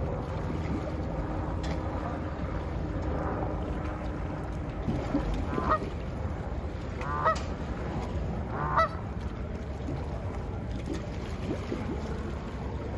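Canada goose honking three times, about a second and a half apart, over a steady low background rumble.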